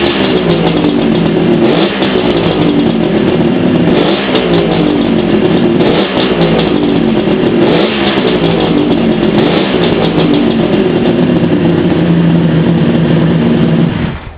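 Kawasaki H1D's three-cylinder two-stroke engine, freshly rebuilt, running and being revved up and down about every two seconds, then cutting off near the end.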